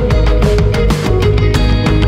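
Background music: a rock-style track with guitar over a steady, driving drum beat.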